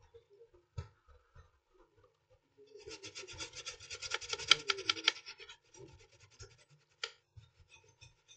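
Rapid scrubbing strokes on a laptop motherboard for about three seconds, cleaning off liquid-damage residue, followed by a single sharp click.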